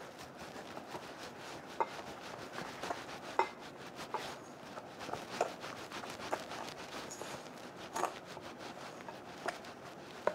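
A fork mixing flour into beaten eggs in a glass bowl: rapid scraping and tapping of the tines against the glass, with several louder clinks that ring briefly.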